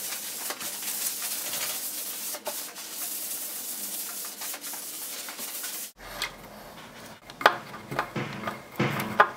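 Cloth rag rubbing back and forth across a wooden tabletop, a steady hiss of wiping. About six seconds in it gives way to a screwdriver turning a screw through a metal tabletop fastener into the wood, with a few sharp clicks.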